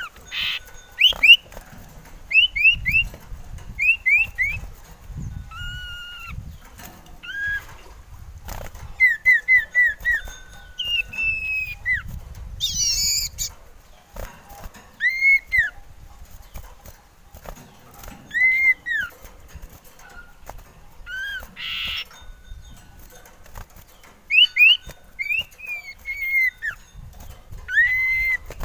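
Male common iora (cipoh) singing: clear whistled notes, some in quick runs of three or four short falling whistles, others single rising-and-falling whistles, with short pauses between phrases. A few brief rustling noises come in between the notes.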